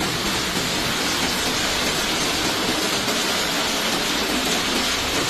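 Heavy storm rain pouring down in a dense, steady hiss at an even level.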